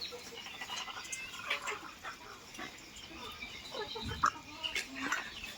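A flock of desi (country-breed) chickens clucking and calling in many short, overlapping calls, with a low thump about three quarters of the way through.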